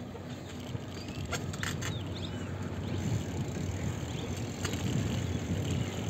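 Wind rushing over the microphone and tyre noise from a bicycle rolling over a concrete bridge deck, growing slightly louder, with a few light clicks.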